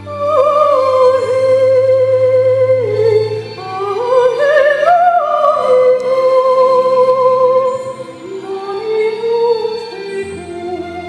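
Lyrical, operatic singing in a high voice with a wide vibrato, over low held accompaniment notes. The voice climbs to its highest notes about halfway through and then settles back down.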